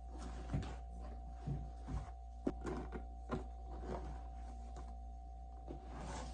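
Scattered light clicks and taps, irregular and a few seconds apart, over a steady low electrical hum with a faint steady whine.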